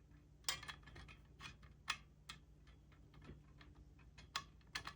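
Faint, irregular clicks and taps of small hardware being handled and fitted together: screws, washers and bars of a planter frame during assembly.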